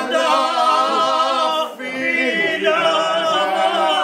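Men singing an unaccompanied Albanian traditional song, long held wavering notes, with a brief break for breath near the middle.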